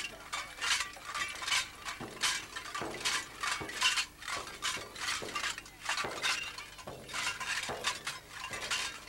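Metal jingles on a Nanai shaman's ritual costume jangling with her movements: a dense, uneven run of bright metallic clinks, several a second.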